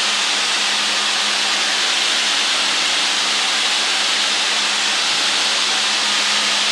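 Steady cockpit drone of a light aircraft in flight: an even hiss of engine and airflow noise over a constant low engine hum.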